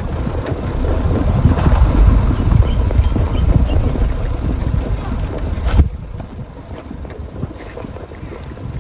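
Wind buffeting the microphone: a heavy, gusting low rumble that drops off suddenly about six seconds in.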